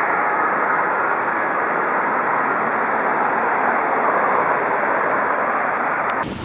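Steady, even noise of heavy street traffic with fire trucks driving past, with no siren tone; it cuts off abruptly near the end.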